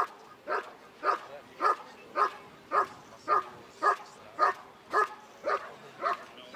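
Working dog barking steadily at the approaching helper, a regular train of short barks just under two a second.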